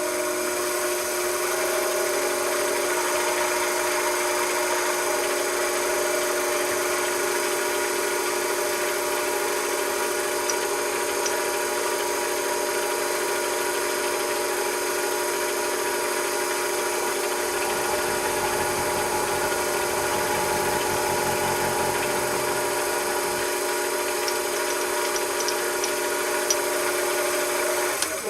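A machine tool's electric motor and drive running steadily with a constant whine, then shutting off at the very end.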